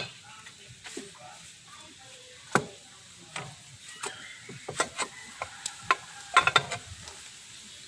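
Scattered clicks and clinks of metal hand tools and bolts being handled while a scooter's rear end is dismantled, with a sharper knock about two and a half seconds in and a few quick clicks near the end.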